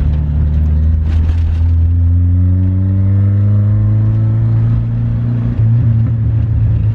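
Toyota Starlet's engine heard from inside the cabin while driving, its revs climbing steadily under acceleration for a few seconds and then levelling off.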